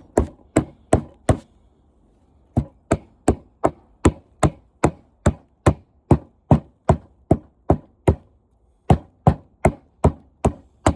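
Steady hammer blows on a window air conditioner's radiator, knocking parts off it, about two to three sharp strikes a second, with a short pause about a second and a half in before the strikes resume.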